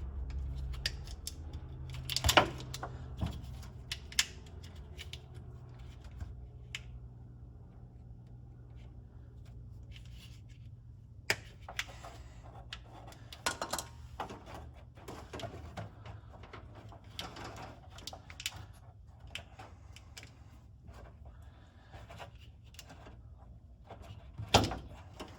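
Scattered clicks, rattles and clatter of old wiring and parts being handled and pulled out of a car, with two sharper knocks, one about two seconds in and one near the end, over a steady low hum.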